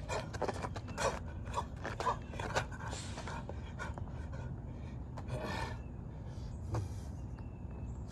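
A man's hard breathing from shadowboxing: sharp, quick exhales about twice a second at first, then fewer and spaced out as he stops and pants to catch his breath.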